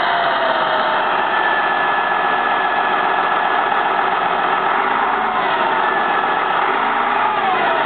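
A 1983 Caterpillar D6D crawler dozer's diesel engine running steadily, with thin whining tones that slide up and down in pitch over the engine noise.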